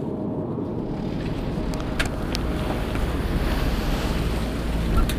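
Wind buffeting the microphone over the rush of waves aboard a sailboat under way, with a few light knocks.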